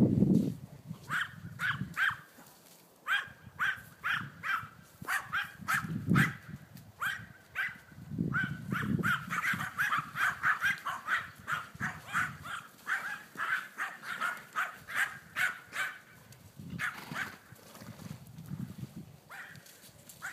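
A dog off-camera barking over and over in quick yaps, about three or four a second, in long runs with short breaks. There is a low rumble at the start and a few more later.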